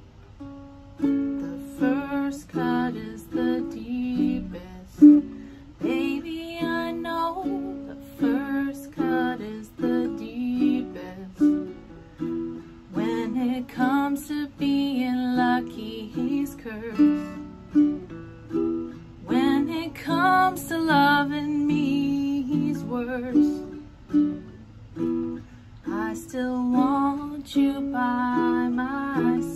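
Baritone ukulele played as chord accompaniment for a slow song, with a woman's voice singing along in phrases.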